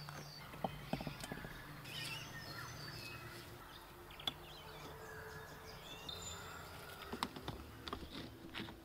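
Rocks knocking and scraping together as flat stones are set by hand into a mud-mortared stone wall, a few sharp clacks with the densest run near the end. Birds chirp in the background.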